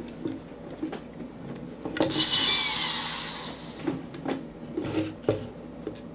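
Transformers Energon Ironhide plastic toy being handled: scattered clicks of its parts, with a louder noisy rattle about two seconds in that lasts about a second and a half as the toy is twisted and shaken.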